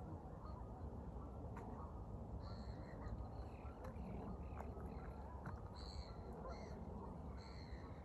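Greylag geese calling in the distance: three bursts of short, harsh honks, the first about two and a half seconds in, over a low steady background rumble.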